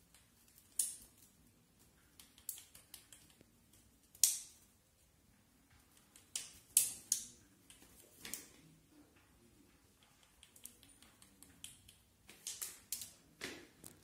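Kittens jumping and pouncing at a feather wand toy: irregular sharp clicks and taps of paws and claws landing on the tiled floor and rug, coming in scattered clusters.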